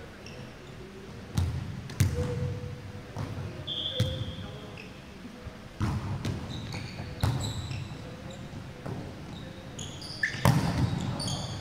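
A volleyball being struck during a rally: several sharp smacks of hands on the ball, echoing in a large gym, the loudest near the end as a player spikes. Short high sneaker squeaks on the hardwood court come in between.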